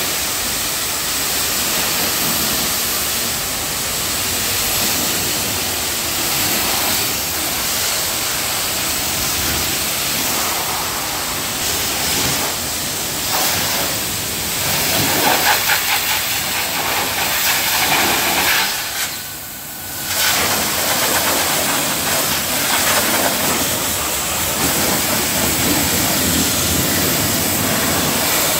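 High-pressure washer jet spraying a car's body panels and wheel arch: a steady hiss of water striking metal, briefly dropping off about two-thirds of the way through.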